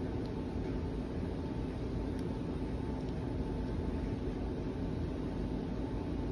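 Steady low background hum and hiss, with a faint steady tone above it and no distinct events.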